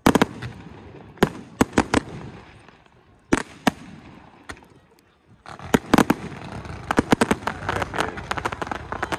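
Fireworks display: aerial shells bursting with sharp bangs, a handful spread over the first few seconds, then from about halfway a rapid volley of bangs and crackling.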